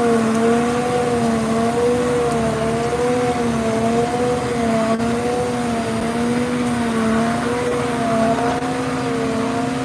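Pool-construction machinery, a concrete mixer truck feeding a shotcrete pump, running with a steady droning hum that wavers slightly up and down in pitch about once or twice a second.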